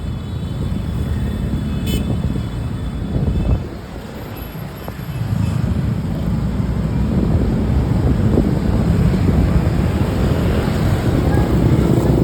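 Road traffic with vehicle engines running, a faint high horn tone held through the first few seconds. The engine and road noise grows louder from about five seconds in.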